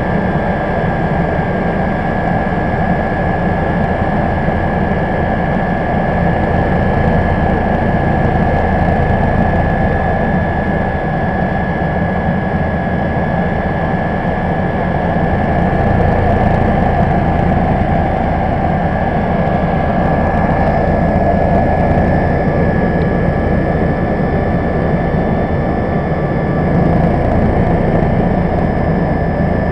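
Cabin noise of a Bo 105 helicopter in flight: its twin turboshaft engines and rotor running steadily, a steady high whine over a dense low rumble.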